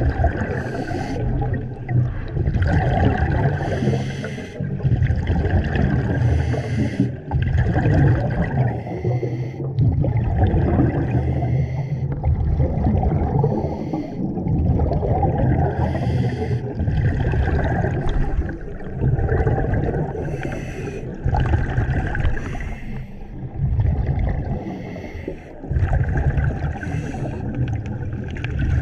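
A diver's scuba regulator underwater: rumbling, gurgling bursts of exhaled bubbles alternating with short hissing breaths, repeating every few seconds.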